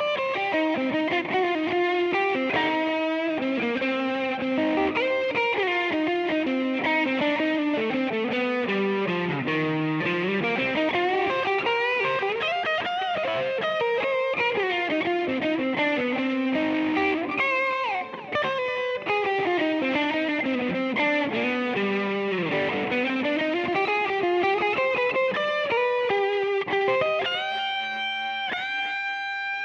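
Instrumental music led by a guitar playing quick melodic runs that sweep down and back up, settling into held chords near the end.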